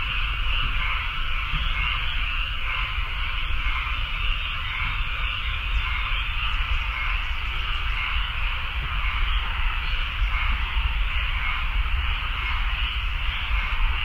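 A steady, dense chorus of calling animals: a continuous high buzzing that holds unchanged throughout, with a low rumble underneath.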